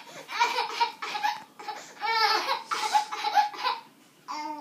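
A young child giggling in high-pitched fits of laughter, several runs of it, with a short break near the end before it starts again.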